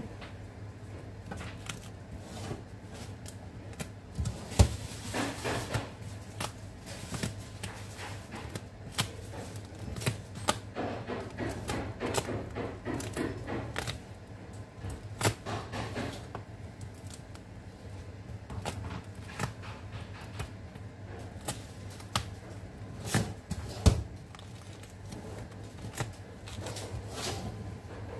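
Foil-wrapped chocolates being picked up and set around the rim of a metal tray: scattered clicks and taps with stretches of rustling, over a steady low hum. Sharper knocks come about four and a half seconds in and again near the end.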